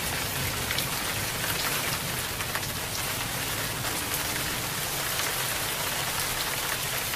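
Heavy rain falling steadily, a dense, even hiss of drops striking the ground.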